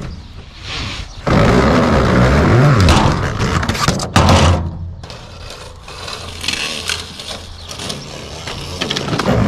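Black corrugated plastic pipes being dragged across and off a flatbed trailer's deck, the ribbed pipe scraping and rattling as it slides. The scraping is loudest from about one to five seconds in, then quieter.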